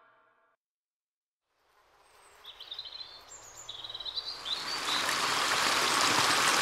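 Silence, then a nature soundtrack fades in: a few birds chirp briefly, and a rushing stream grows steadily louder.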